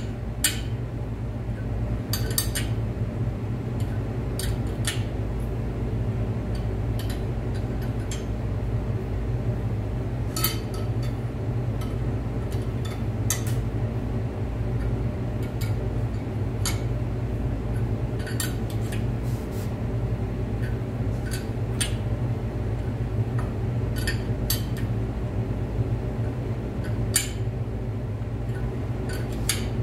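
A large wrench clinking on the nut of a homemade threaded-rod installer as it is turned a bit at a time and refitted, pressing a harmonic damper onto an LS V8 crankshaft: short sharp metal clinks every second or two, over a steady low hum.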